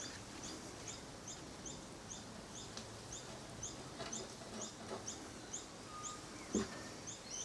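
A bird calling over and over in the background, short high chirps about three a second, evenly spaced and faint, with a soft knock near the end.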